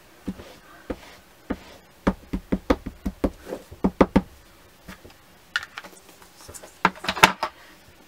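Clear acrylic stamping block with a mounted rubber stamp tapped again and again on a Memento ink pad to ink it: light knocks, a quick run of about four a second in the middle, then a louder cluster of clicks and knocks near the end.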